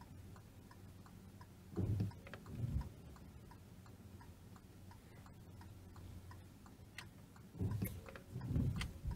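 Car cabin with the engine running low and steady, scattered light ticks, and a few soft low thumps about two seconds in and again near the end, the later ones as the windscreen wiper sweeps across the glass.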